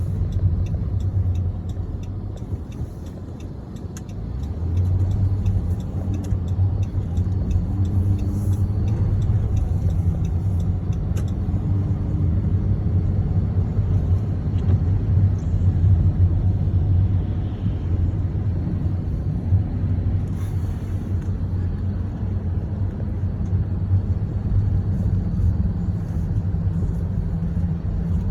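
Steady low rumble of a car driving, heard from inside the cabin. The rumble eases off about three seconds in, then picks up again about a second later.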